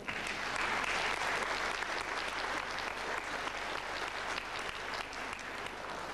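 Audience applauding, starting suddenly and slowly dying away.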